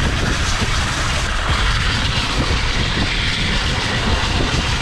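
Mountain bike ridden on its bare rear rim with no tyre, the metal rim rolling and scraping over the ground as a steady rumble with hiss above it.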